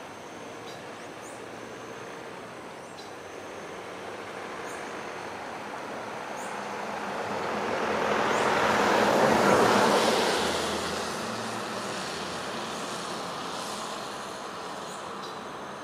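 A vehicle passing by: a rushing noise that swells to its loudest about nine seconds in, then fades away.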